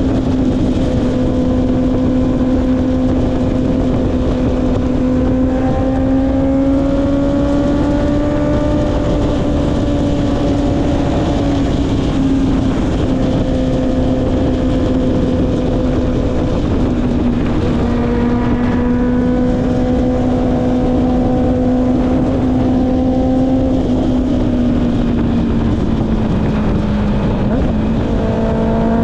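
Honda CB650R's inline-four engine through an Akrapovic exhaust, running steadily under light throttle with only small changes in pitch, over a steady rush of wind. Near the end the pitch sags, then rises as the throttle is opened again.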